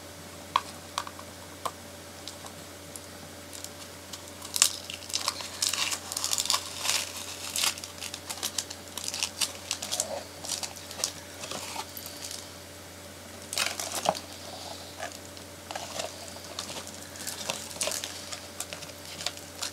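Doll box packaging being handled and pulled apart: plastic and cardboard crinkling and crackling in many irregular clicks and rustles.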